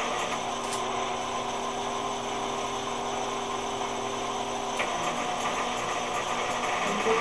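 Rotating emergency light bar running: its beacon rotator motors and drive gears whir steadily with a mechanical hum.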